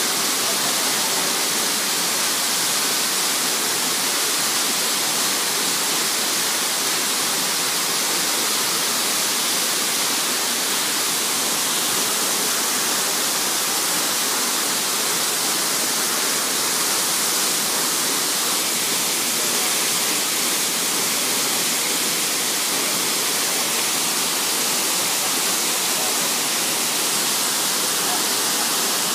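Waterfall pouring into a rock-lined pool, a steady rushing hiss, with a shallow stream running over the rocks close by.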